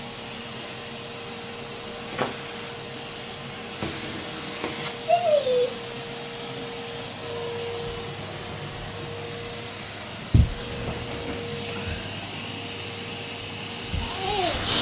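Vacuum cleaner running steadily with an even hum, with a few knocks as it is worked, the loudest about ten seconds in.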